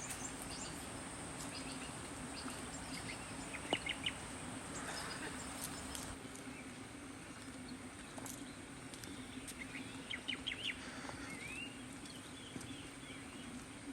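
Forest birds calling: clusters of short chirps and curving call notes, about four seconds in and again around ten to eleven seconds, over a steady high-pitched whine.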